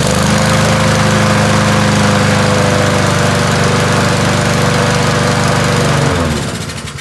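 Honda lawn mower's single-cylinder four-stroke engine running steadily on its newly fitted spark plug, then shut off about six seconds in, its pitch dropping as it winds down.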